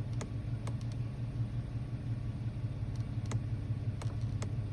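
Audi Q7 engine idling steadily, heard from inside the cabin as a low, even hum. A few faint clicks are scattered through it.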